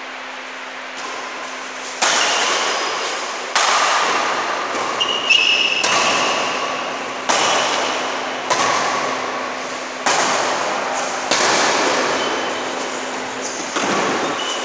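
Badminton rally: rackets striking the shuttlecock, about eight sharp hits one to two seconds apart starting two seconds in, each ringing on in the echoing hall.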